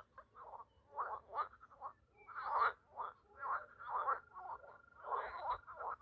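A chorus of frogs calling from a reedy pond: overlapping calls, about two a second, going on without a break.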